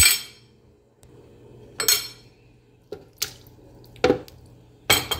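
A kitchen utensil clinking and knocking against a cooking pot of broth, about six separate short clinks with pauses between them.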